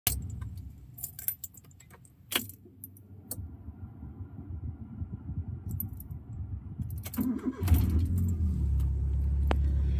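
Car keys jangling and clicking on their ring as the key is worked in the ignition. About seven seconds in, the starter cranks briefly and the car engine catches, settling into a steady low idle.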